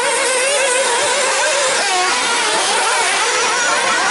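Several 1/8-scale nitro off-road buggies' small two-stroke glow-fuel engines running together, high-pitched notes overlapping and rising and falling with the throttle.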